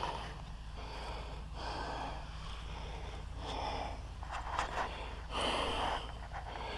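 A man's breathing close to the microphone, several noisy breaths in and out, over a steady low hum.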